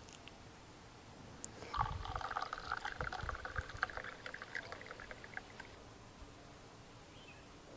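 Juice trickling and dripping from hot doddapatre (Indian borage) leaves squeezed by hand into a herbal decoction, for about four seconds and fading away near the end.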